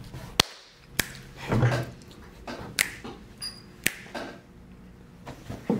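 A few scattered sharp clicks or taps, about four spread over several seconds, with a short low sound among them.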